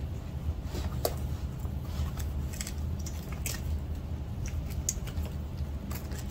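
Handling noise from a fireproof lipo safe bag: its fabric rustles and crinkles with scattered small clicks as a charging lead is worked through the opening, over a steady low hum.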